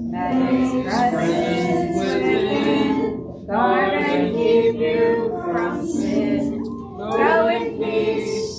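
A small congregation singing a hymn together, in phrases with short breaks about three and a half and seven seconds in.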